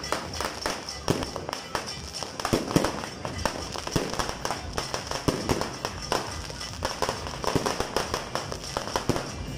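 New Year's fireworks and firecrackers going off: a dense, irregular string of pops and bangs, many overlapping, with the loudest bang a little before three seconds in.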